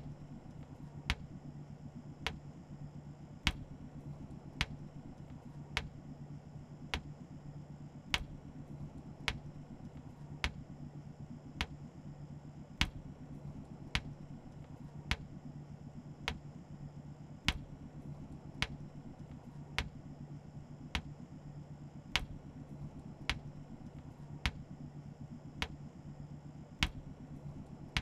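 Slow, steady ticking, one sharp tick a little more than a second apart, over a low, constant hum: an ominous end-credits soundscape.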